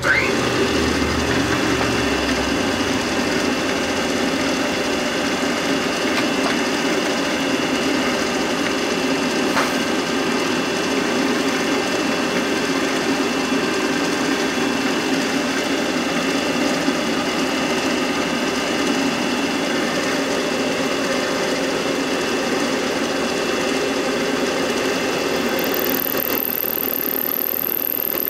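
Millport Model 2S milling machine taking a light finish cut, about five thousandths deep, across a metal block under power feed. A short rising whine sounds as the feed starts, then the cutter runs steadily along the face with a constant high whine over the machine's hum.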